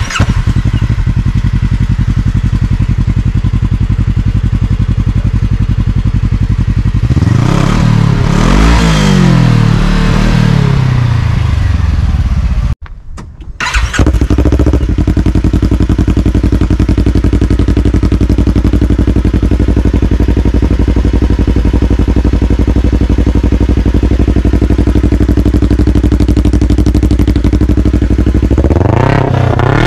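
Kawasaki KRX 1000's parallel-twin engine idling through its stock muffler, revved up and down several times about seven to twelve seconds in. After a short break, the same engine idles through an RPM SXS stainless steel slip-on sport muffler, starting to rev again near the end.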